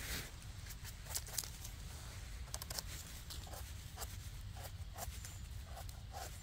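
Dry forest-floor litter of leaves and twigs crackling and rustling in short, irregular crunches.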